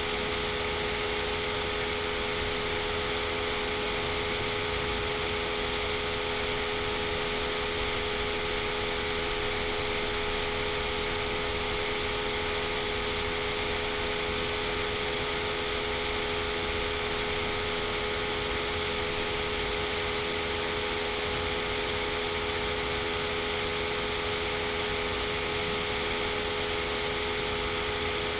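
Steady background hum with hiss, a few fixed low tones over an even noise, unchanging throughout.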